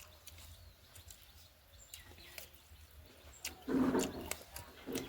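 Close-miked eating sounds of someone chewing pork: many sharp wet mouth clicks and smacks, with a louder, lower mouthful sound about three and a half seconds in.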